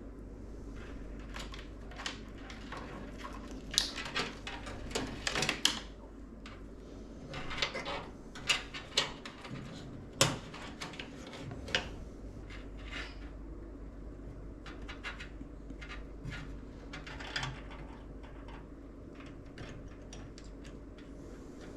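Hands working on computer parts in a PC case: irregular small clicks, taps and plastic rustles, with the sharpest click about ten seconds in, over a faint steady room hum.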